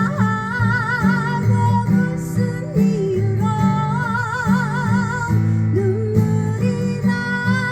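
Music: strummed acoustic guitar chords under a high melody held in long notes with wide vibrato.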